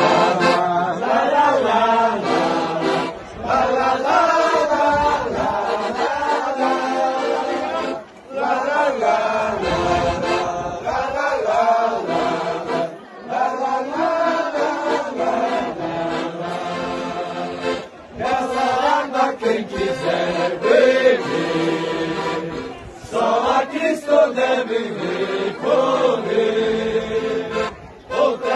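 Piano accordion playing a hymn tune while a group of voices sings along, in phrases with short breaks every few seconds.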